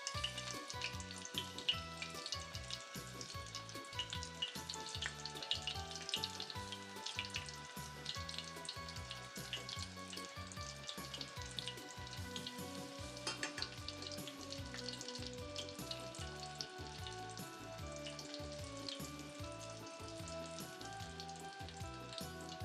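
Dough pieces deep-frying in hot oil, with a steady sizzle and dense crackling.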